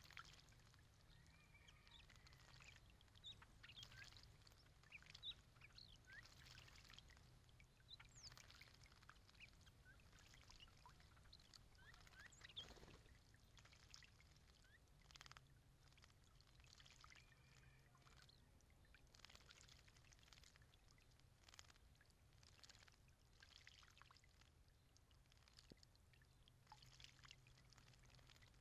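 Faint patter of a solar fountain's spray falling back into a stone birdbath, with bursts of splashing from hooded orioles bathing and fluttering in the water, and a few short, high bird calls.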